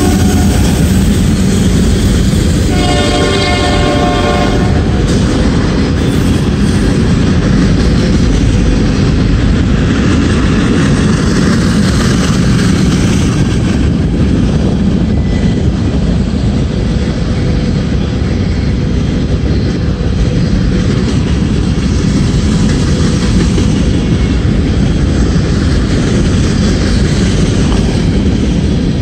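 Freight train of covered hopper cars rolling past close by: a steady, loud rumble of steel wheels on rail, with the trailing Norfolk Southern diesel locomotive just going by at the start. About three seconds in, a brief high tone with several pitches sounds for about two seconds.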